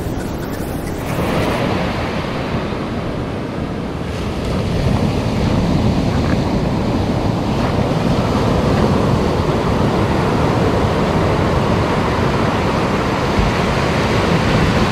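Ocean surf breaking and washing up a sandy beach, a steady loud rush, with wind buffeting the microphone.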